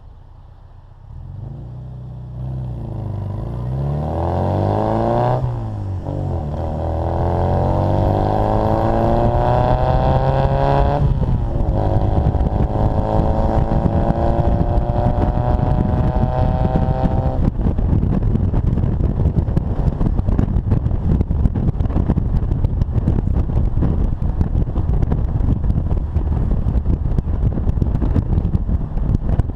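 Austin-Healey Bugeye Sprite's 948 cc four-cylinder engine and exhaust accelerating through the gears: the note climbs in pitch, drops at upshifts about five and eleven seconds in, and climbs again. From about seventeen seconds the engine note gives way to steady wind and road noise at speed.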